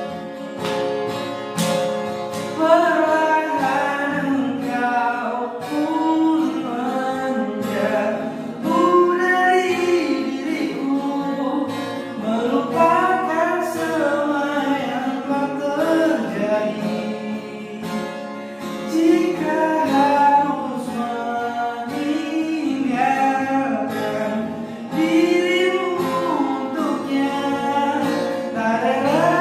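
A singer singing a slow song to a strummed and plucked guitar.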